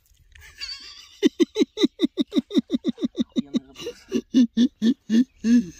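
A person laughing hard: a quick run of short laugh pulses, about five a second, that turns into slower, louder ones near the end.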